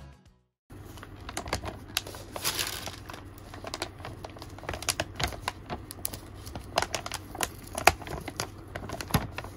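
Metallised anti-static bag around a graphics card crinkling as gloved hands handle it, with many sharp, irregular crackles, starting just under a second in.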